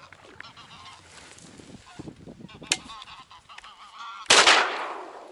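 Wild geese honking in flight, several short calls, then a single loud shotgun shot about four seconds in that dies away over half a second.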